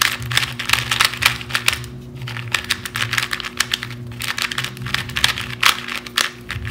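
New 2x2 speedcube being turned quickly by hand: a rapid, uneven run of plastic clicks and clacks as the layers turn. The cube is still tight out of the box, not yet broken in.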